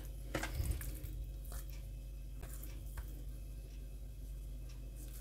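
Faint, scattered taps and soft handling sounds as raw pork neck steaks are turned and sprinkled with dried garlic from a shaker, over a steady low hum.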